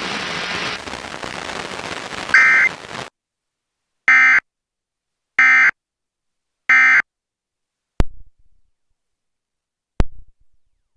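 Emergency Alert System end-of-message signal: three short, identical bursts of warbling digital data tones, about 1.3 seconds apart, closing a severe thunderstorm warning. Before them a steady hiss with a brief tone blip cuts off abruptly about three seconds in, and two sharp clicks follow the bursts.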